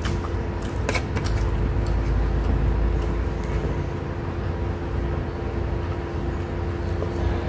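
Steady low rumble with a constant hum underneath, and a few faint clicks about a second in.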